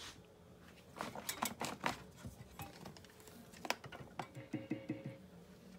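Clicks, knocks and rustling of hands handling a cable plug and the freshly soldered 1/4-inch jack of a cigar box guitar while the jack is being checked. There is a quick cluster of clicks about a second in, a single sharper click later, and a short run of low knocks near the end.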